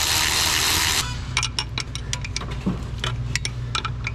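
A power tool runs on a fuel bowl bolt with an even hiss and stops about a second in. Then come scattered light metallic clicks and clinks of tools and parts being handled, over a low steady hum.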